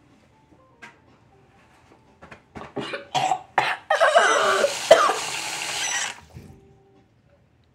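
A person coughing: a run of short coughs, then one long drawn-out cough lasting about two seconds.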